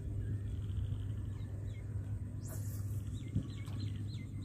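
Small birds chirping in short, repeated, curving notes over a steady low rumble.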